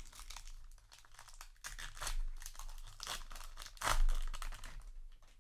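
A trading-card booster pack's foil wrapper crinkling and tearing as it is opened, in irregular rustles with the loudest about four seconds in.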